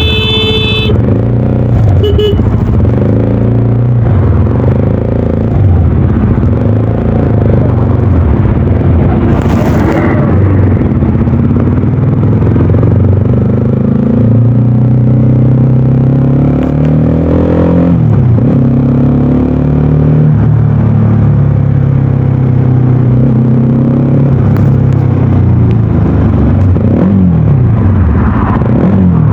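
Voge 300DS motorcycle's single-cylinder engine running loud under way, its note holding and shifting in steps. The pitch drops off twice, about two-thirds of the way through and again near the end.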